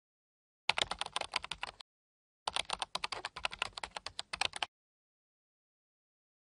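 Computer keyboard typing sound effect: rapid key clicks, about ten a second, in two runs, a short one starting just under a second in and a longer one of about two seconds after a brief pause.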